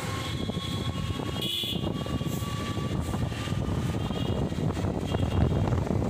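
Motorcycle riding through road traffic, heard from the back of the bike: a steady low rumble of engine and wind on the microphone, with a brief high-pitched sound about a second and a half in.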